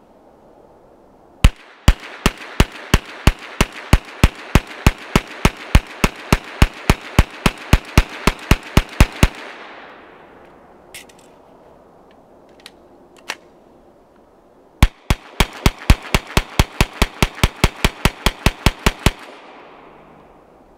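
Ruger PC9 9mm semi-automatic carbine fired rapidly: a string of about two dozen shots at roughly three a second, then after a pause of about five seconds a second fast string of shots. Each string ends in a ringing echo that dies away.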